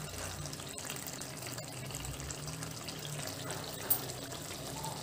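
Gongura chicken curry simmering in the pan: a steady low bubbling and sizzling, with one short click nearly four seconds in.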